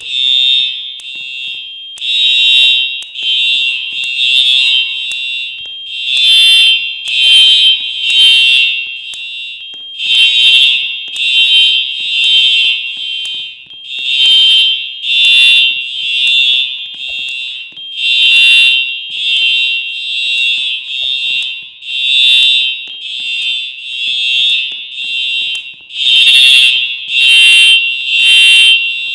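Simplex fire alarm sounding its evacuation signal: a loud, high, buzzing horn tone pulsing in groups of three, the pattern repeating about every four seconds (the temporal-three evacuation pattern).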